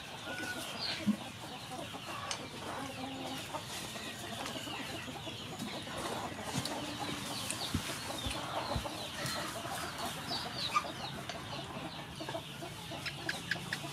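Domestic chickens clucking on and off.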